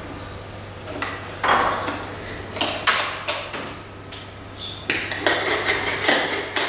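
Wooden geometric shape insets knocking and clattering against a wooden tray as they are picked up and set into its openings: a string of sharp, irregular wooden knocks, some followed by brief scraping.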